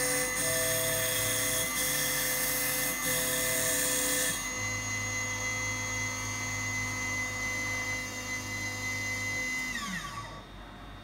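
Small high-speed CNC milling spindle running, as used to grind an A10 chip off an iPhone board. A hissing grinding layer sits over its steady whine and stops about four seconds in. Near the end the spindle winds down, its whine falling in pitch.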